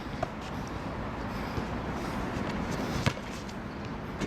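A basketball bouncing on the court: a faint knock near the start and one loud bounce about three seconds in, over steady background noise.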